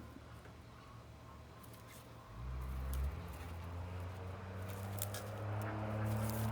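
Hands digging and rummaging through loose garden soil, with short rustles and crunches. About two seconds in, a low, steady motor hum comes in and slowly grows louder.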